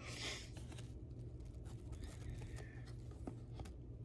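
Trading cards being handled: a short swish as a card slides off the stack at the start, then scattered faint clicks and taps of card edges.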